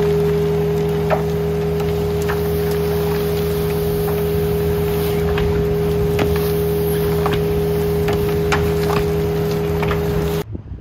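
Boss Vac hydrovac's 4310 vacuum blower running steadily, pulling air through the suction tube as it vacuums soil and gravel out of a hole. Scattered sharp clicks of small stones strike the inside of the tube. The sound cuts off abruptly near the end.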